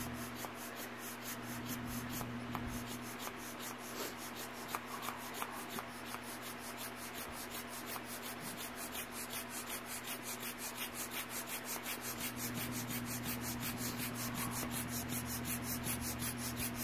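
Hand air pump being worked quickly and evenly, each stroke a rushing scrape of air and plunger, as it inflates a vinyl inflatable beach ball. The strokes get a little stronger and faster about halfway through.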